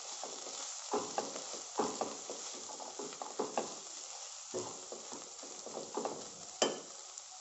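Coarsely ground green peas frying in oil in a non-stick kadhai, sizzling steadily while a silicone spatula stirs and scrapes through them in short strokes. There is one sharper tap near the end.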